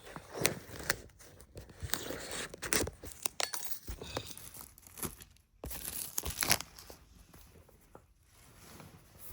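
Plastic shrink-wrap being torn and crinkled off a sealed iPhone box, in irregular sharp crackles and rustles.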